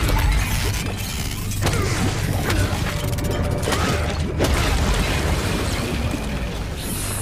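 An animatronic gorilla being smashed apart: a loud crash at the very start, then a dense run of heavy blows and clattering mechanical parts, with several sharper impacts, over a low music score.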